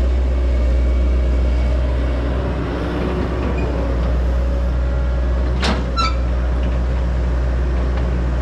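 John Deere hydraulic excavator's diesel engine running steadily under load as it digs. There is one sharp clank about two-thirds of the way through.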